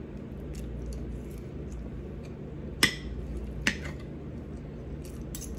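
Metal cutlery clinking against a pan twice, about a second apart, over a steady low hum.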